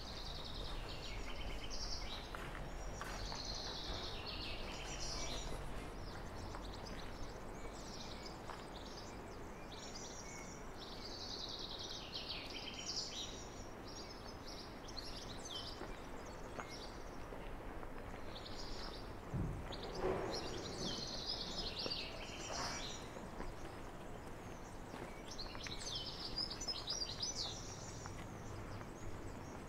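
Songbirds singing, a string of short high chirping phrases repeated throughout, over a steady low outdoor background. About two-thirds of the way through there is one brief, louder low sound.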